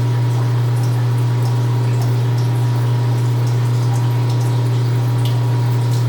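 Precision Matthews 1640 metal lathe running steadily: a constant low hum with a few fixed tones above it, and faint scattered ticks and drips.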